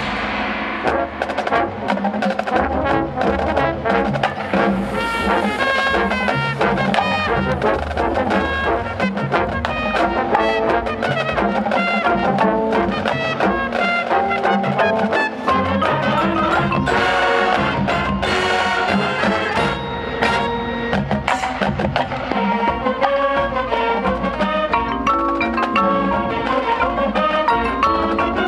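High school marching band playing: brass with trombones and trumpets over drums and front-ensemble mallet percussion such as marimba, with many sharp drum strikes.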